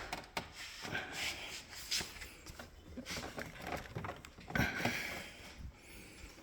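Refrigerator plastic parts being handled and slid into place: irregular rustling, scraping and light clicks, with a louder knock about four and a half seconds in.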